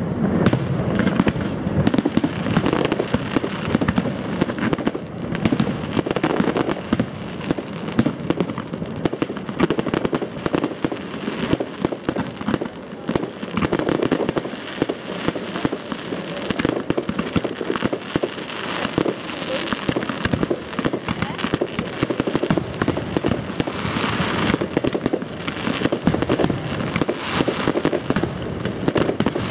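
Fireworks display: a dense, unbroken barrage of aerial shells bursting, with many sharp bangs and crackling stars close on one another.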